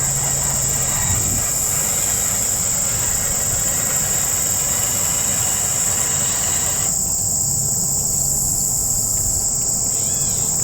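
Insect chorus: a steady, loud, high-pitched buzz with faster pulsing above it, over a low steady rumble.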